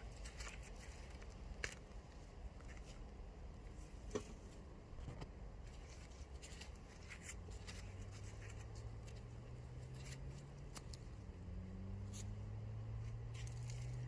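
Faint scattered crunches and rustles of garden soil and dry potato plants being dug and pulled for potatoes. A low steady hum comes in about halfway.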